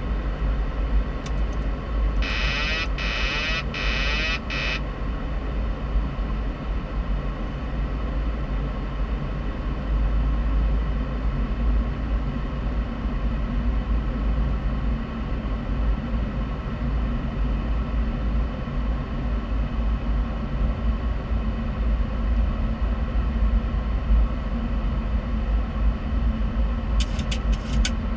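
Steady flight-deck noise of a Boeing 737-800 on approach: a low rumble of airflow and engines with a steady hum. About two seconds in, a high electronic alert tone sounds in a few pulses for a couple of seconds, and a few light clicks come near the end.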